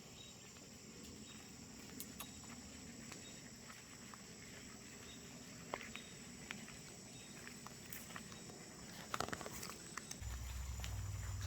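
Faint, steady high-pitched insect chorus with scattered light clicks. About ten seconds in, a low rumble starts and grows.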